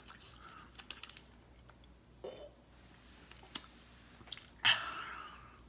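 Close-up mouth sounds of chewing a sticky, taffy-like sour candy: scattered wet clicks and smacks. A louder breathy noise comes about five seconds in.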